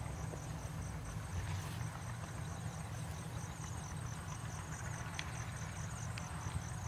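Insects chirping in a steady, evenly pulsing high trill over a low steady rumble, with a few faint clicks.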